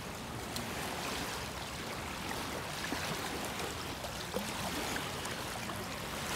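Small waves lapping against a muddy, stony river shore: a steady wash of water with a few faint ticks.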